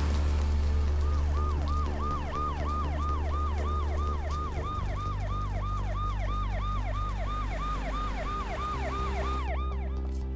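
Police car siren on a fast yelp setting, a rising-and-falling wail about three times a second, over a low rumble; it cuts off shortly before the end.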